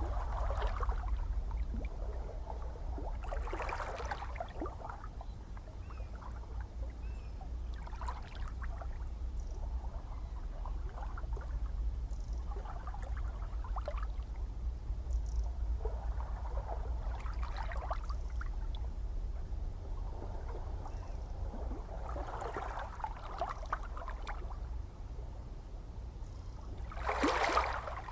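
Gentle ocean waves lapping and splashing over a steady low rumble of the sea, a small wash every few seconds, with a sharper, louder splash near the end.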